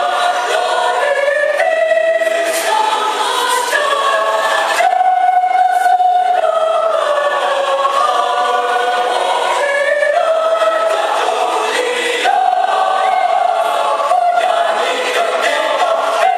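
Mixed choir of men's and women's voices singing in harmony, holding chords for a second or two at a time before moving on to the next.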